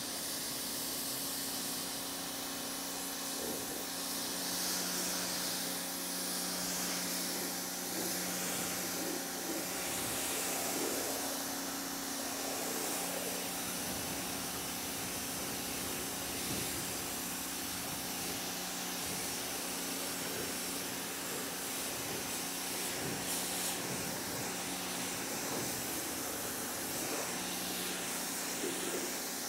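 TEANDE 1800 W electric pressure washer running steadily: a constant hum from its electric motor and pump under the hiss of the water jet spraying onto a car.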